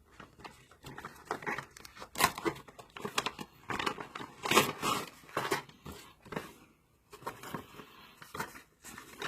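Plastic packaging crinkling and rustling in irregular bursts as oscilloscope probes are handled, with a few sharper clicks.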